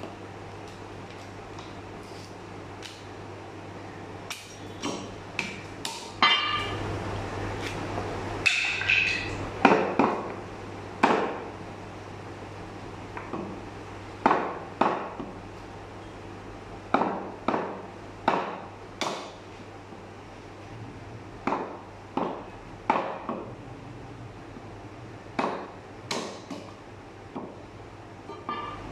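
Heavy meat cleaver chopping mutton on a wooden butcher's block: irregular sharp chops, about two dozen, starting a few seconds in and coming in quick clusters of two to four, over a steady low hum.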